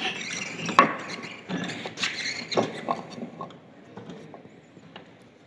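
A few sharp knocks and clicks from a block of wood being set and clamped in a bench vise, growing fainter toward the end.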